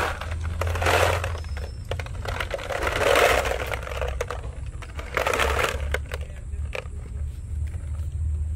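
Plastic bottle packed with Mentos being handled: crinkling plastic and candies shifting and rattling in several short bursts with scattered clicks, over a low steady rumble.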